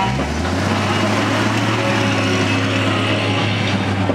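Ram heavy-duty pickup truck's engine pulling away, its pitch rising briefly as it sets off and then holding at a steady low hum.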